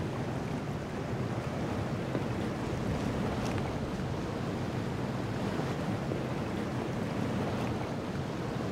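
Steady wind and sea waves on open water.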